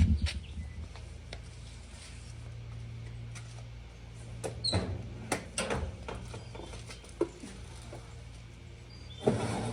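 Scattered clicks, light knocks and scrapes from hands and tools working on an old sheet-metal stove, over a steady low hum, with a louder rattle near the end.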